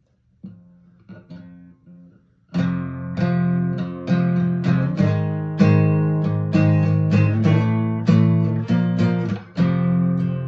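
Acoustic guitar with a capo: a few soft notes picked at first, then, about two and a half seconds in, loud chords strummed in a steady rhythm that carries on.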